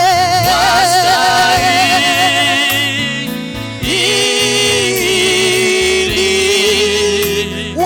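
Swahili gospel worship song: a voice holds long notes with vibrato over instrumental backing with a bass line, moving to a new held note about halfway through.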